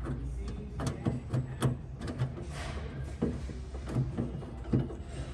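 Irregular light clicks and knocks of metal and plastic parts being handled inside a pickup tailgate, as a tailgate lock unit is fitted onto its mounting bolts and they are started by hand.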